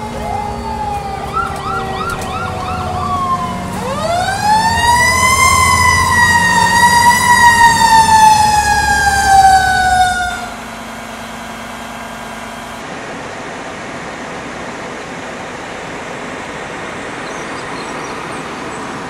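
Fire engine siren wailing: after a falling tone and a few short chirps, it rises sharply in pitch about four seconds in, holds and slowly sinks, then cuts off abruptly around ten seconds in. Steady outdoor street noise follows.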